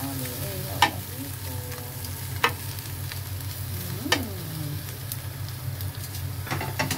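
Prawns sizzling on a ridged grill pan over a steady low hum. Metal tongs click sharply three times, about 1, 2.5 and 4 seconds in, each with a brief metallic ring, and a few lighter clicks follow near the end.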